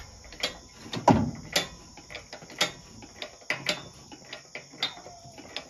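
Irregular metallic clicks and clunks from an engine hoist and its lifting chain as the hoist is jacked up to take the weight of a V8 engine.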